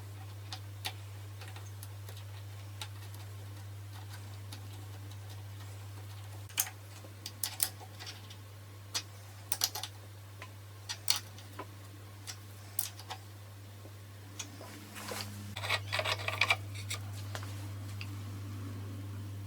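Scattered sharp clicks and light taps, like small hard parts being handled, over a steady low hum; the clicks come thicker and rattle together around two-thirds of the way through.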